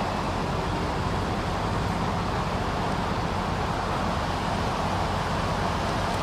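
Steady vehicle and traffic noise: an even hiss with a low engine hum underneath, unchanging throughout.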